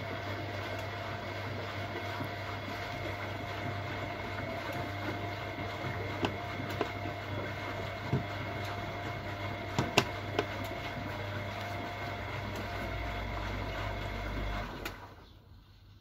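Siemens Siwamat Perfecta SL washing machine running a steady motor hum with a few sharp clicks in the middle, a deeper rumble setting in near the end, then stopping abruptly.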